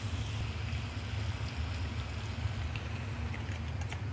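Chicken livers sizzling and simmering in brandy in a frying pan, a steady hiss with scattered small pops, over a steady low rumble.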